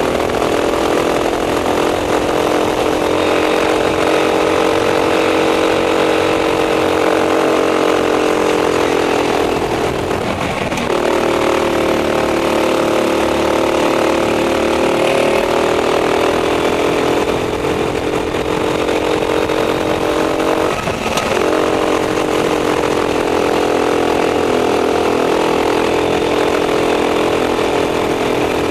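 Racing kart engine heard on board at full throttle, its pitch held high, dropping sharply twice (about 10 and 21 seconds in) as the driver lifts for corners, then climbing steadily back up as it accelerates out.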